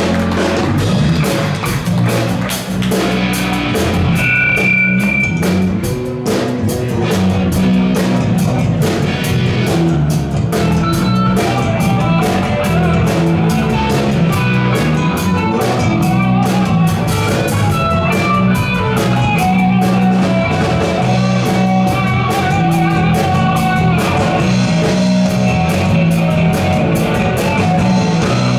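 Live rock band playing an instrumental passage: electric guitars over bass guitar and a drum kit keeping a steady beat.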